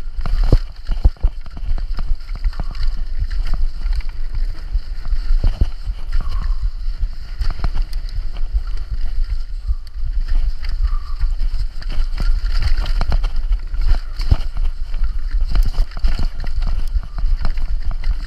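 Downhill mountain bike descending a rough, rocky trail at speed: a steady low rumble with constant irregular clattering and knocks from the tyres, suspension and frame hitting rocks and roots.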